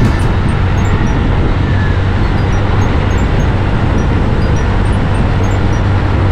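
Steady noise of a moving road vehicle, with a constant low engine hum under an even rumble and hiss.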